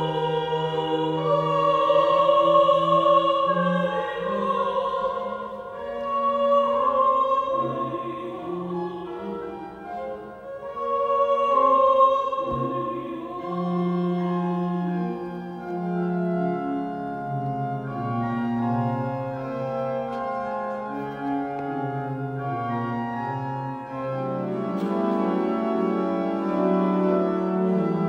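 Classical sacred music: singing in long, wavering held notes over sustained organ chords, the organ growing fuller near the end.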